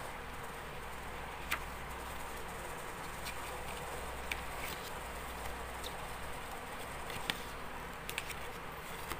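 Pages of a small paper user manual being handled and turned, with a few light paper clicks and rustles. A steady low hum runs underneath.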